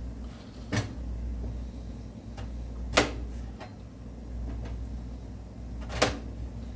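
Three sharp kitchen knocks, a few seconds apart, the middle one loudest, over a steady low hum.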